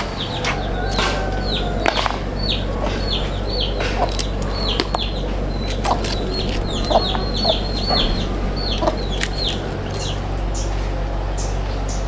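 Chickens clucking, with many short, high, falling peeps repeating throughout.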